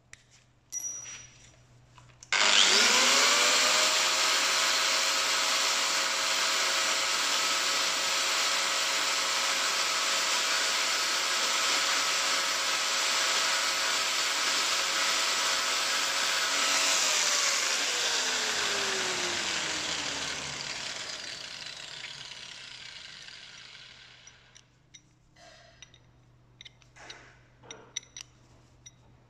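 Angle grinder with a cutting disc cutting metal: the motor spins up sharply about two seconds in, runs steadily with a loud grinding hiss, then is switched off about seventeen seconds in and winds down with a falling whine over several seconds. Light clicks and handling knocks follow near the end.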